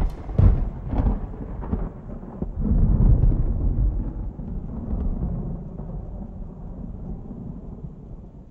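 A low rolling rumble, opening with a few sharp thuds in the first second, swelling about three seconds in and then slowly dying away.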